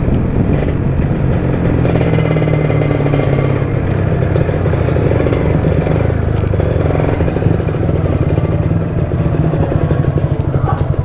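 Motorcycle engine running at low revs as the bike rolls slowly in, easing toward a slow, pulsing idle near the end.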